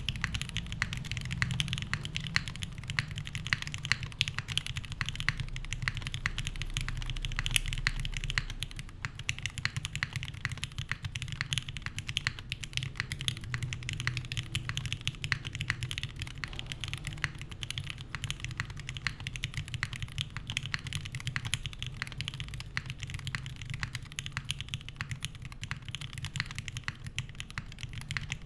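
Continuous fast typing on a gasket-mounted mechanical keyboard with lubed Gateron Mink linear switches, an aluminium plate and GMK keycaps: a dense, unbroken run of keystrokes.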